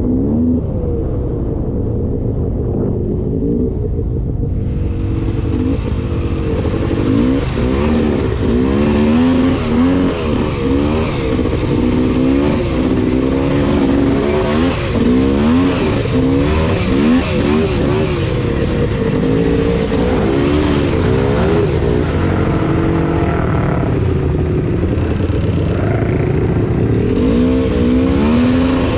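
Polaris Scrambler 400 ATV's two-stroke engine running under load on a trail, the revs rising and falling constantly as the throttle is worked. From about five seconds in, a steady hiss runs under it.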